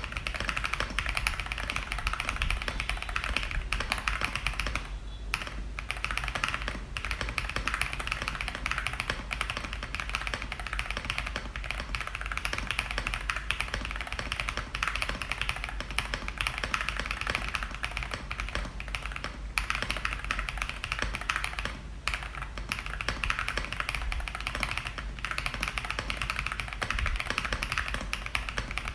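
Fast continuous typing on a custom gasket-mount mechanical keyboard (ZUOYA GMK81 kit) with AKKO V3 Cream Yellow Pro linear switches and PBT keycaps: a dense stream of key clacks with a few brief pauses. The builder calls the sound thocky and creamy.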